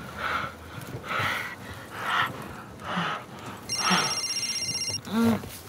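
A mobile phone ringtone trills for about a second, starting about two-thirds of the way in. Before it comes heavy breathing, about one breath a second.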